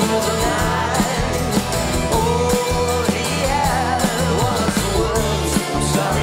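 Live rock band playing: regular drum hits over a steady bass, with a bending melodic line on top.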